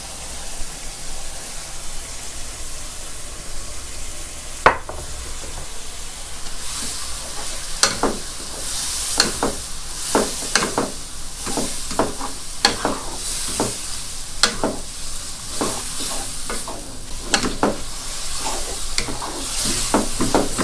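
Rice noodles sizzling in a wok of simmering sauce while a wooden spatula stirs and scrapes them against the non-stick pan. There is one sharp knock about five seconds in, and from about eight seconds on the scrapes come quickly, roughly twice a second.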